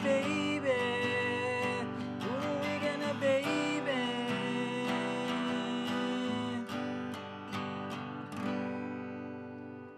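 Acoustic guitar strummed, heard through an AK50 USB condenser mic, with a wordless sung line over it in the first few seconds. The strumming slows toward the end and the last chord rings out and fades.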